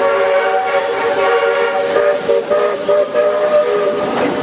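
Steam train's chime whistle sounding a chord of several notes: one long blast, then a string of shorter blasts.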